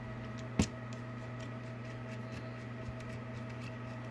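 Precision Phillips screwdriver working a tiny circuit-board screw: one sharp click about half a second in, then faint small ticks of the bit turning in the screw. A steady hum runs underneath.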